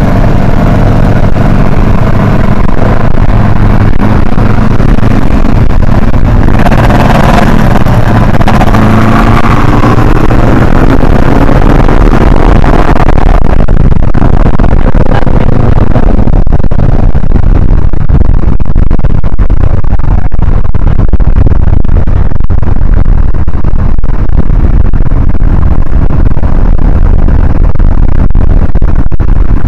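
A car engine pulls hard under heavy wind rumble on the microphone. Its pitch climbs repeatedly from about a quarter to well over a third of the way in. After about halfway the engine fades, leaving mostly a steady low rumble of wind and road.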